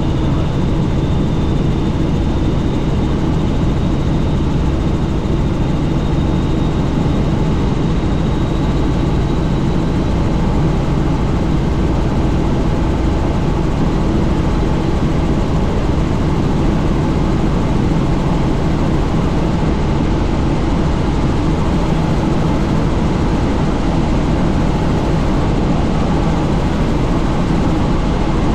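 Helicopter in flight: steady rotor and engine noise mixed with rushing wind. A faint high whine sits above it for the first ten seconds or so.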